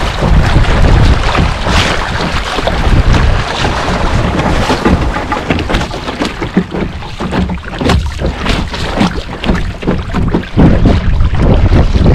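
Wind buffeting the microphone over water rushing and splashing along the hull of a Puddle Duck Racer sailboat under way, with a run of sharper splashes and slaps in the second half.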